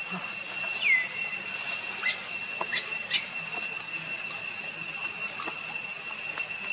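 A steady, high-pitched whistling drone, with one short falling squeak about a second in and a few sharp clicks or rustles around two to three seconds in.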